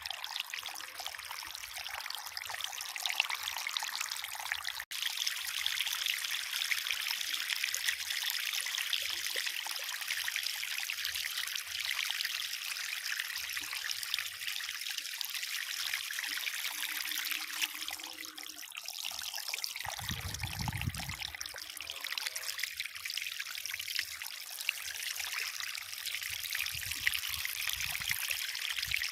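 Water trickling steadily over a miniature concrete waterfall. A brief low rumble comes about two-thirds of the way through.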